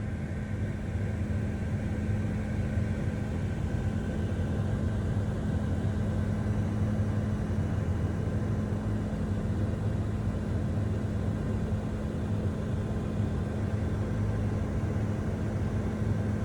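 A steady engine drone with a constant low hum that does not change in pitch or level.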